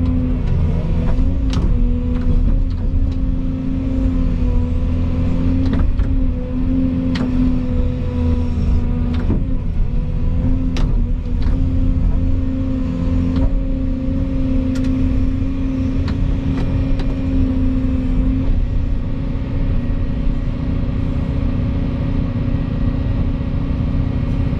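Volvo EC220 excavator's diesel engine running steadily, a constant low rumble with a held hum-like tone, with scattered sharp clicks over it.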